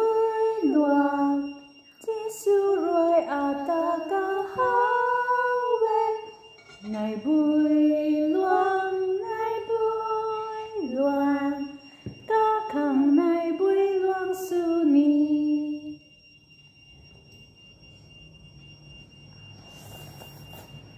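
A woman singing a slow melody in long held notes that step up and down, in phrases with short breaks; it stops about 16 seconds in.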